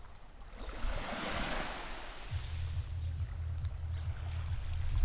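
Sea waves washing onto a stony shore, one wash swelling and fading in the first two seconds. Wind rumbles on the microphone from about two seconds in.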